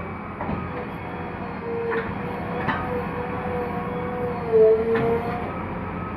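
JCB 3DX backhoe loader's diesel engine and hydraulics working while digging, with a steady whine that dips in pitch and gets louder a little past the middle as the machine takes load. A few sharp knocks from the bucket and arm.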